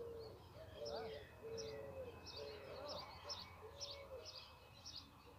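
Birds calling faintly: a string of short, high chirps over a series of low, even notes about half a second long, repeated one after another.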